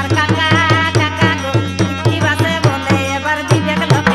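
Instrumental passage of Bangla Jhumar folk music: hand-drum strokes about three a second, each dropping in pitch, over a steady low bass note and a wavering melody line.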